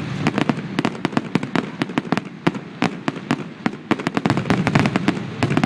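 Fireworks going off in a dense, rapid string of sharp bangs and crackles, several a second without a break.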